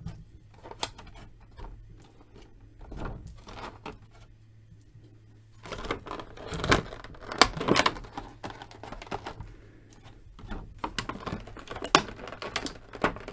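Clear plastic blister tray crinkling and clicking under hands as ties holding action figures in it are worked loose. The crackling is irregular, with a lull about four seconds in and busier handling after it and near the end.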